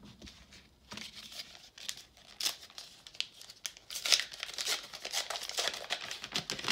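Crinkling and tearing of a baseball card pack wrapper being ripped open by hand, an irregular run of crackles that is busiest in the middle and latter part.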